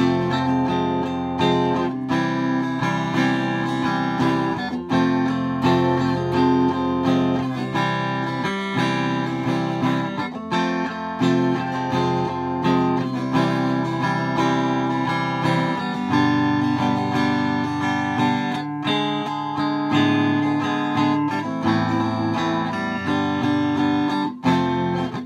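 Electric guitar with a single hand-wound, very low-output single-coil neck pickup (3500 turns, 1.1 H), strummed and picked in chords through a clean amplifier. Chords change every second or so, and the tone is thin and close to an acoustic guitar's.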